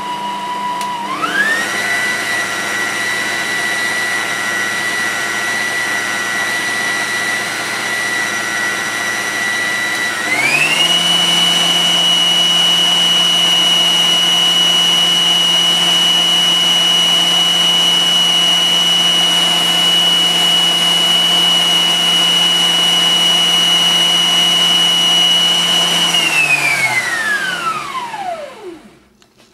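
Bosch food processor motor whirring as it blends chickpeas into hummus. Its whine steps up in pitch about a second in and again around ten seconds in as the speed dial is turned higher. Near the end it is switched off and winds down to a stop.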